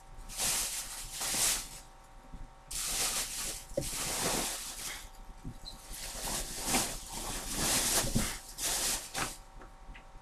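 TV packaging rustling in several bursts of one to three seconds as the set is handled and unwrapped from its box.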